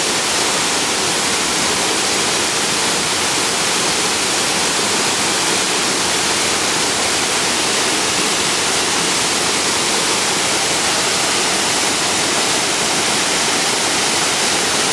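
Steady rush of a waterfall on a mountain creek, water pouring over the falls.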